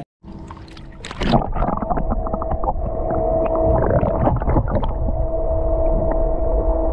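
Camera dipping under the water about a second in, with splashing and bubbling, then muffled underwater noise over a steady hum.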